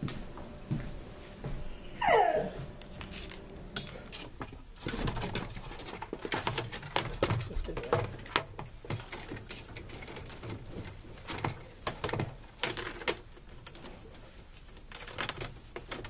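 Metal fish tape (wire snake) scraping and clicking irregularly inside the wall cavity as it is pushed through, and at times jamming. A short whine falling in pitch comes about two seconds in.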